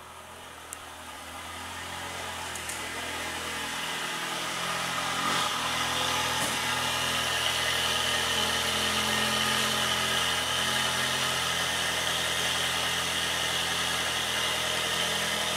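Ferrari 360 Modena's 3.6-litre V8 idling steadily, growing louder over the first few seconds and then holding level.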